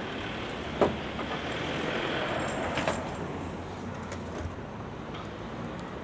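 Steady road-traffic noise that swells about two seconds in as a vehicle passes, with a couple of sharp clicks or knocks.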